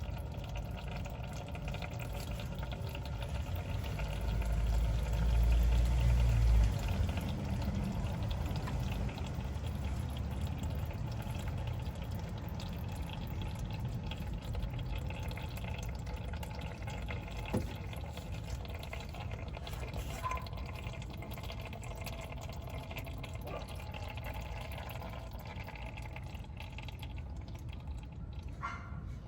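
Used engine oil pouring in a steady stream from the sump of a 1.6 L 1ZR-FE engine into a drain pan. A louder low rumble lasts a few seconds near the start.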